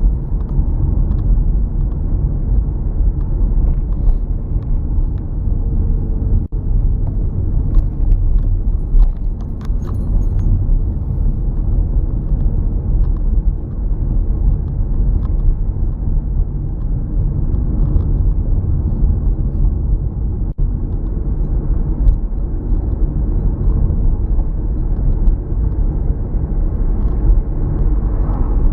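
Steady low rumble of a car driving: road and engine noise that goes on without a break.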